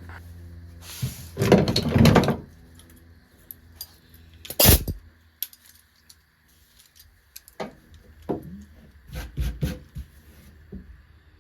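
Handling noise of tools and metal: a loud rustling scrape, one sharp knock, then scattered light clicks and taps.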